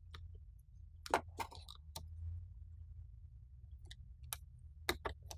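Sharp, scattered clicks and light scrapes of small hand tools on a power-supply circuit board as the glued thermal paste holding a coil is worked at, over a low steady hum.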